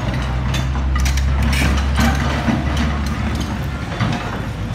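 SANY crawler excavator working: its diesel engine runs with a low hum that grows heavier under load and eases off about three seconds in, with several sharp knocks and clanks from the machine at work.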